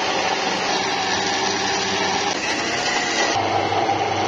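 Steady mechanical whirring noise, which changes abruptly about three and a half seconds in.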